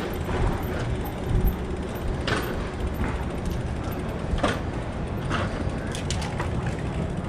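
Riding a bicycle: wind rumbling on a chest-mounted action camera's microphone, with a few sharp clicks or knocks from about two seconds in.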